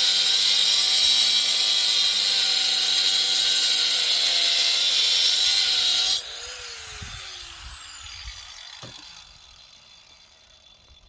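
Handheld power tool running hard, then switched off about six seconds in, its pitch falling as the motor spins down and fades.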